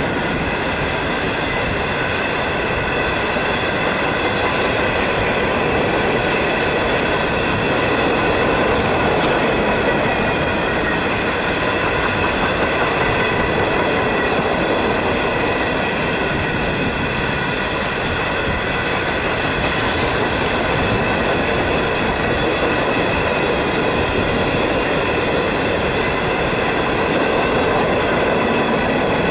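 A freight train of empty flatcars rolling past at close range: a steady rumble and clatter of wheels on rail, with a steady high ringing of several pitches over it, as of wheel squeal.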